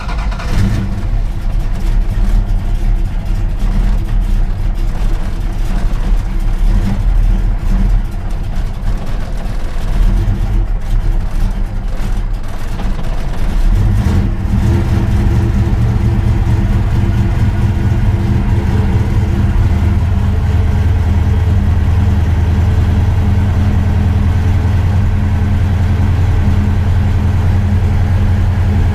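1967 Dodge Dart's 408 stroker Mopar V8 with a solid roller cam, just fired up after six months in winter storage. It runs unevenly at first, then settles into a steadier idle about halfway through.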